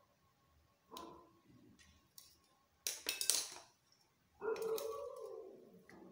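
Kitchen knife clinking and scraping against a stainless steel plate as a soft block of fresh paneer is cut, with a click and brief metallic ring about a second in, a sharp scrape about three seconds in, and a longer ringing scrape after it.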